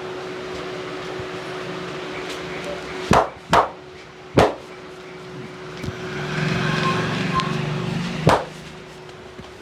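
A barber's hands slapping during a head massage: three sharp slaps in quick succession a little past three seconds in, then one more near the end, over steady roadside street noise that swells in the second half.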